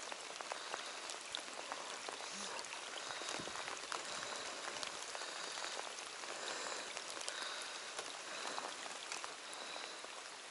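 Steady rain falling on a lake's surface and on the boat, with scattered light ticks.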